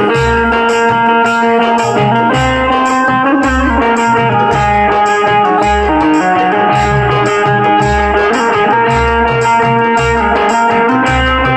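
Instrumental devotional folk music with no singing: an Indian banjo (bulbul tarang) and harmonium play the melody in held, bright tones over a dholki and octapad beat, with a deep stroke about once a second and quicker sharp strokes between.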